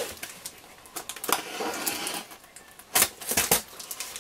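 Taped cardboard box being cut and pulled open: a run of sharp crackles, scrapes and clicks of packing tape and cardboard flaps, loudest in a cluster about three seconds in.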